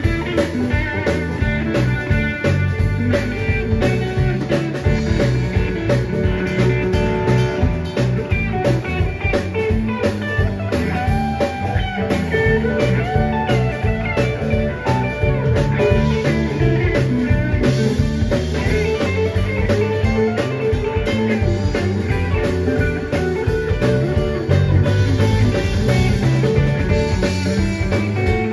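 Live blues band playing an instrumental passage without vocals: electric guitar over electric bass and drum kit, with a steady beat.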